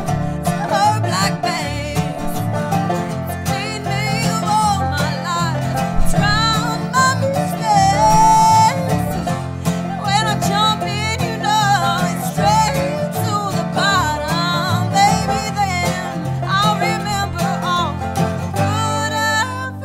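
Acoustic string band playing an instrumental passage: banjo picking and sliding dobro lines over guitar. Near the end it settles into a held, ringing chord.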